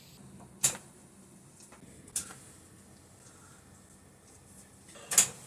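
Three short, sharp cracks of joints popping during a chiropractic adjustment: one under a second in, one about two seconds in, and one near the end.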